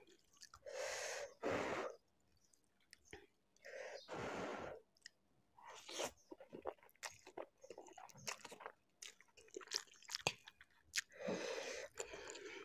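Close-miked eating of spicy Maggi instant noodles: three long, loud slurps, about a second in, around four seconds and near the end, with wet chewing and quick mouth clicks in between.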